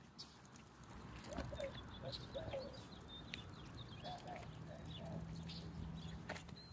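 Faint outdoor ambience: scattered short bird chirps over a low rumble, with a steady low hum for a couple of seconds from about four and a half seconds in.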